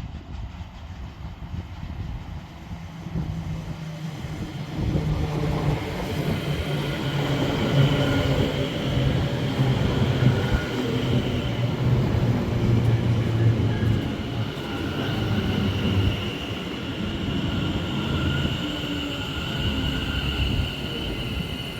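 Multiple-unit passenger train running at the station, growing louder about four seconds in and staying loud, with a steady low drone and high whining tones over it.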